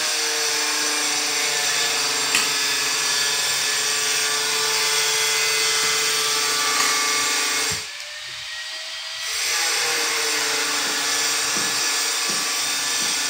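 Steady machine whirring with a low hum, like a small motor running. It cuts out for about a second and a half around two-thirds of the way through, then resumes.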